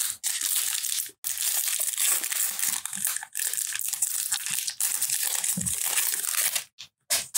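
Foil wrapper of a baseball card pack being torn open and crinkled by hand: a loud crackling crinkle, broken briefly about a second in and again about three seconds in, that stops shortly before the end.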